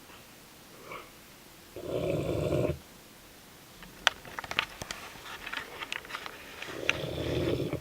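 Dogue de Bordeaux (French Mastiff) snoring in its sleep: two long, loud snores about five seconds apart. Between them comes a run of sharp clicks.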